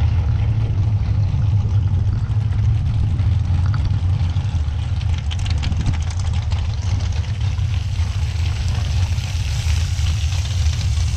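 An engine idling steadily with a low rumble, under an even hiss that gets a little louder after about eight seconds.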